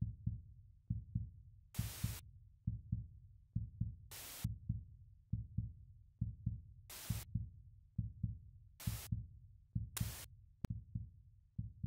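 Heartbeat sound effect: a low double thump, lub-dub, repeating about once a second. Short bursts of static hiss cut in five times.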